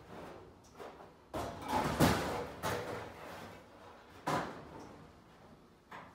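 Thin aluminium fuselage skin being manhandled into place over the fuselage frame: a series of clunks, bumps and scrapes of sheet metal, loudest about two seconds in.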